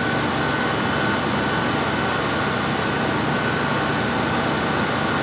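Steady hum and whir of running laboratory equipment and fans around an XPS instrument, unchanging throughout, with a faint steady high tone.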